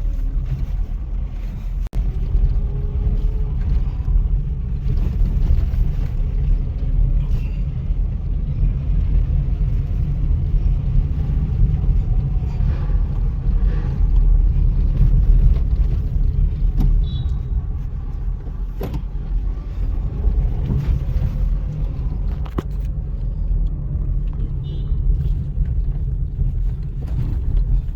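Steady low road rumble heard inside the cabin of a Maruti Suzuki S-Presso hatchback as it drives over a broken, unpaved stretch of road, with a few sharp knocks from the wheels and suspension hitting bumps.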